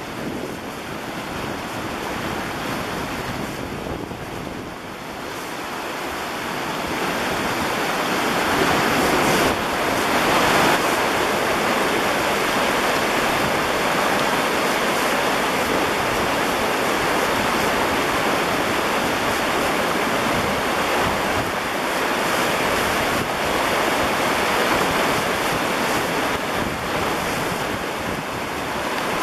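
River Thames floodwater rushing through Hambleden Weir's gates and churning below them, a steady dense rush of turbulent water that grows louder about seven seconds in and holds steady from then on.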